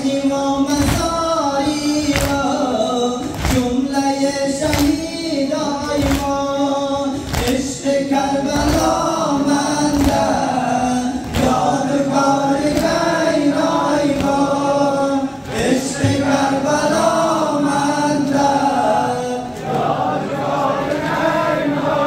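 A crowd of men chanting a Muharram mourning lament in unison, with sharp, evenly timed collective chest-beating slaps (sineh-zani) about once every second and a quarter, strongest in the first half.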